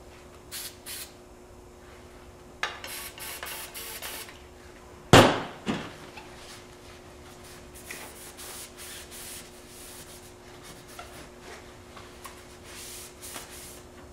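Short hissing bursts of Remington oil sprayed from a small aerosol can onto a shotgun barrel, a run of them a few seconds in, then a loud knock with a smaller one just after it. After that comes the softer, scattered rubbing of a cloth wiping the oiled barrel.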